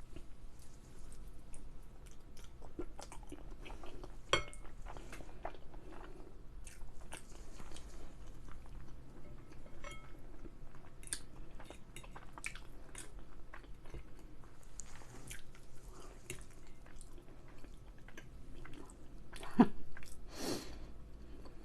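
Close-miked chewing and biting of food, with many small mouth clicks. Near the end there is a louder knock followed by a short noisy burst.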